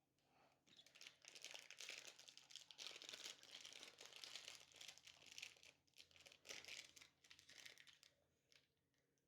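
Faint crinkling and crackling of a thin plastic mold being flexed and peeled off a set plaster volcano, from about a second in until near the end.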